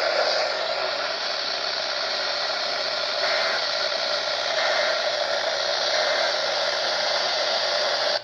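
Steady hiss of static from a weather radio receiver, a weak or noisy signal with no clear voice or tone coming through.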